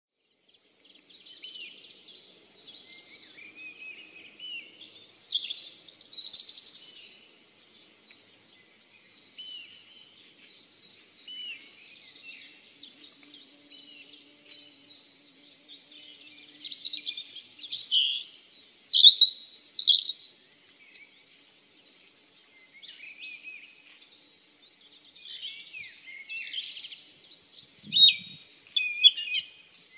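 Birds chirping and calling, many short high chirps and trills overlapping, with three louder spells of calling.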